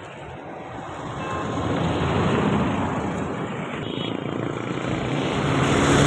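Road traffic going past, most likely motorcycles and other vehicles: the engine and tyre noise swells, eases slightly about halfway, then swells again to its loudest near the end.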